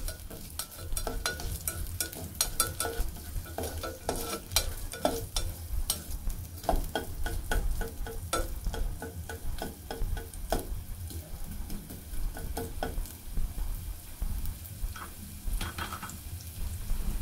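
Ginger strips sautéing in hot oil in a coated saucepan, sizzling, with a slotted spatula repeatedly scraping and clacking against the pan as they are stirred.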